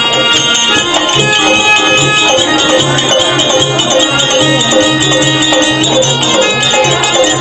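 Instrumental accompaniment of a Kannada bayalata folk-theatre performance: sustained melody tones over a steady drum beat of about two strokes a second.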